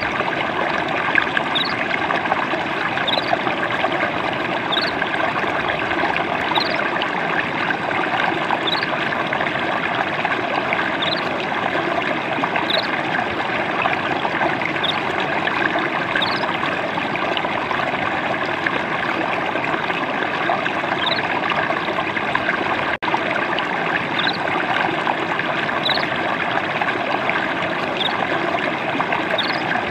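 Water trickling and babbling steadily over a shallow stream. A short high chirp repeats about every two seconds, and the sound drops out for an instant about two-thirds of the way through.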